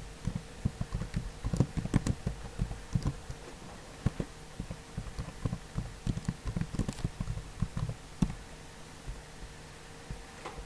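Typing on a computer keyboard: a quick, irregular run of key clicks that stops about eight seconds in, over a steady faint hum.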